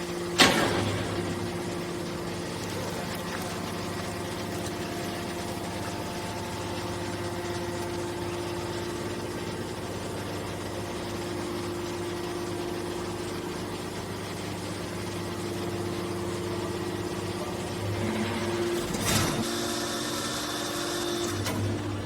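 Hydraulic baler running: a steady machine hum with several held tones, a sharp clank about half a second in, and a short hissing burst near the end.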